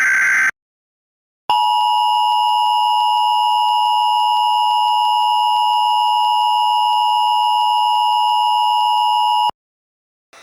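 Emergency Alert System tones. The last burst of the SAME digital header, a short buzzing data burst, ends about half a second in. After a second of silence comes the EAS two-tone attention signal (853 and 960 Hz), held steady for about eight seconds before it cuts off suddenly.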